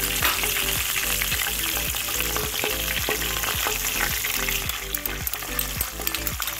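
Hot oil with minced garlic and ginger sizzling in a frying pan as soy and oyster sauce cook into it, a steady frying hiss.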